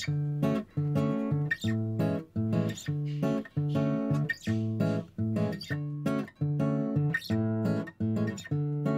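Background music: a rhythmic strummed acoustic guitar, chords struck about twice a second.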